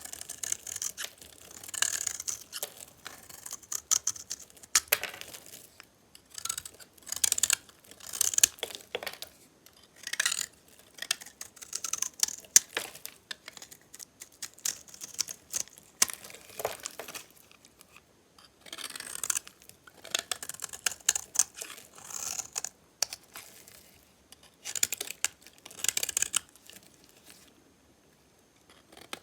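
A knife cutting through dry, metallic-painted soap bars, making crisp crackling cuts and scrapes one after another, every second or two. The sounds stop briefly near the end.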